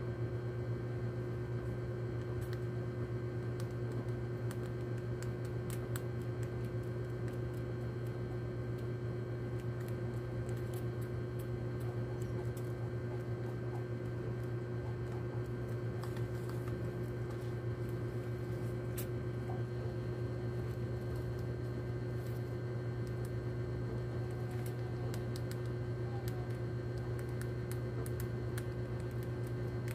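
A steady low hum throughout, with scattered faint clicks and crunches of a rat gnawing poison bait pellets.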